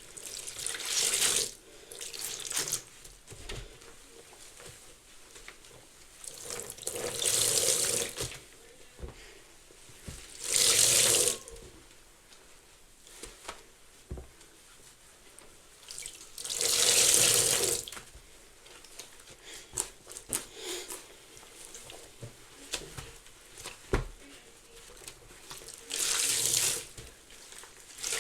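A sudsy sponge soaked in Fabuloso and bubble bath squeezed about five times, each squeeze a gush of soapy liquid lasting a second or so, with faint crackling and small clicks of the suds between squeezes.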